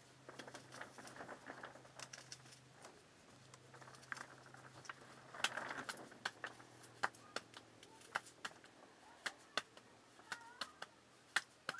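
Bread dough being patted and worked by gloved hands: soft pats and rustling, with scattered small sharp clicks and taps.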